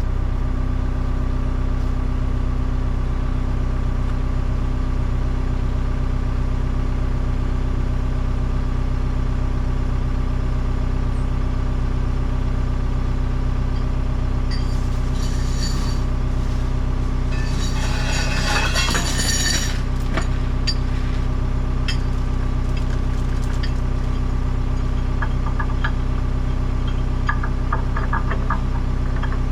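Engine of a bucket machine idling steadily, with chains clinking and rattling against the metal about halfway through and again near the end as they are hooked onto the bucket.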